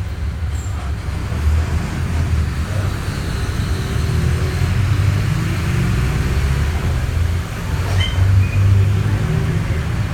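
Mercedes-Benz OF-1722M bus diesel engine running while the bus is under way, a loud low drone that eases off briefly about seven and a half seconds in and then picks up again.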